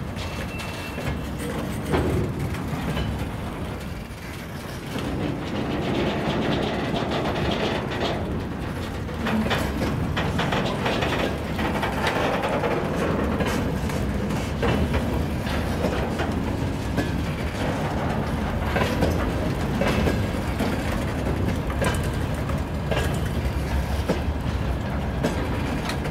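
Open-top gondola wagons of a freight train rolling past: a steady rumble of wheels on rail, with repeated clicks and clanks as the wheelsets cross the rail joints.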